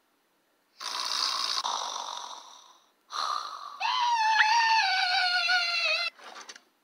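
Cartoon fight vocal effects: a breathy, hissing cry that fades out over about two seconds, then a loud, high-pitched scream held for about two seconds, sliding slowly down in pitch before it cuts off.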